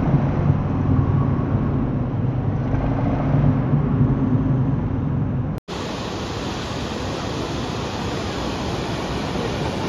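Motorcycle engine running steadily on a rough road. About halfway through, the sound cuts off abruptly and a steady rush of falling water from a waterfall takes over.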